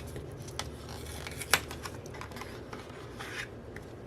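Hands handling and opening the packaging of a postcard and photo ticket set: small clicks, taps and short rustles, with one sharper click about one and a half seconds in.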